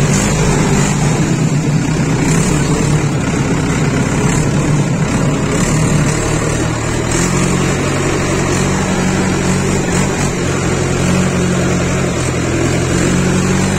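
Mahindra tractor's diesel engine running steadily under load as the tractor drives through shallow muddy water, with splashing from the front wheels; the engine note shifts slightly about halfway through.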